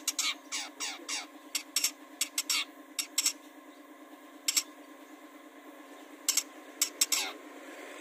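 Long-tailed shrike (cendet) calling: rapid, sharp chattering notes mixed with quick downward-sliding whistles, in clusters, with a lull in the middle and a single note during it.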